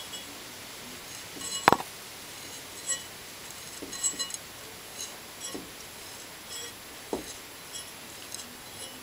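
Scattered light metallic clicks and clinks as a tapered file wedged into a drilled-out broken stud is turned to unscrew the stud from a Honda GX160 engine block; one sharp click about two seconds in is the loudest.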